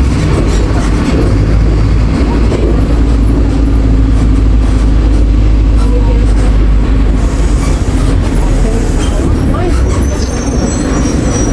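Inside a moving city bus: the engine and the road make a steady, heavy low rumble, with faint passenger murmur. A thin, high squeal comes in near the end.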